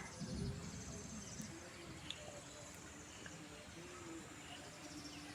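Rural outdoor ambience: insects chirring in a steady fast pulse, with a few brief bird chirps and a short low rumble at the start.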